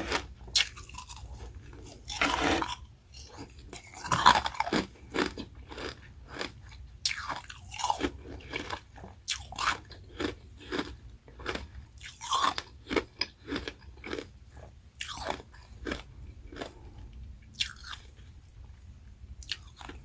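Close-miked crunching of carbonated ice rounds and shaved freezer frost being bitten and chewed, in irregular crisp crunches that thin out over the last few seconds.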